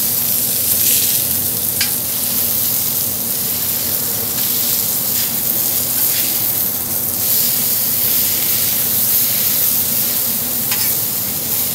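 Smashed ground beef patties sizzling on a hot cast iron griddle. A metal spatula scrapes briefly against the griddle a few times as the patties are flipped.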